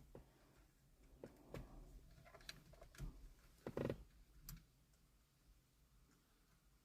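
Faint, scattered clicks and taps of small plastic parts being handled while aux buttons are fitted into the steering wheel's blank switch slots, about seven over the first five seconds, one a little louder near the middle.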